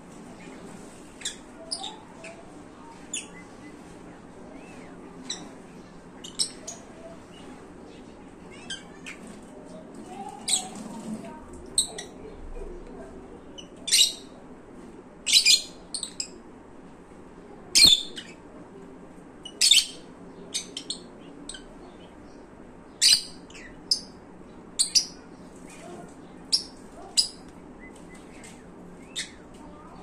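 Lutino peach-faced lovebirds chirping: short, sharp, high-pitched calls at irregular intervals, loudest and coming more often from about halfway through.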